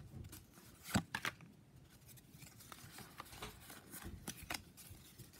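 Quiet rustling and soft clicks of a small stack of Pokémon trading cards being sorted through by hand, one card slid behind another, with a sharper card snap about a second in.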